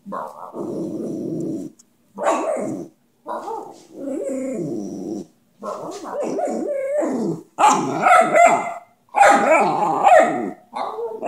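A puppy "talking": a string of about eight drawn-out, howl-like vocalizations whose pitch bends up and down, with short breaks between them, getting louder in the second half.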